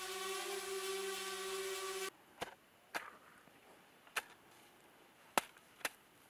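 Steady hum of a drone's propellers, which cuts off about two seconds in. Then a snow shovel strikes the snow-covered haystack five times, each a short, sharp chop as snow is cleared off the hay.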